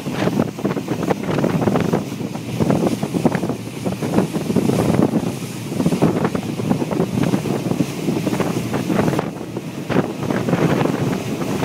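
Wind gusting hard on the microphone aboard a moving boat, over the rush of water along the hull.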